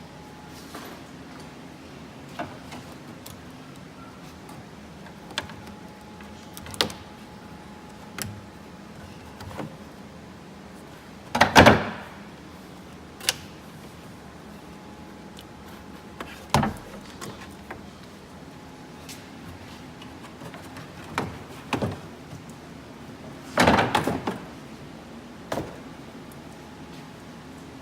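Scattered clicks and knocks from car trim parts being handled and removed, with two louder half-second scraping, sliding sounds, one near the middle and one near the end.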